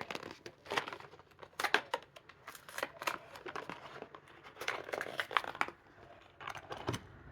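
A Hot Wheels blister pack being torn open by hand: the plastic blister and cardboard backing card crinkle and tear in repeated short bursts.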